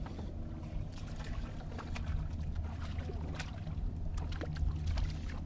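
Spinning tackle being worked as a hooked crappie is reeled in, with scattered small clicks and taps from the reel and rod over a steady low hum.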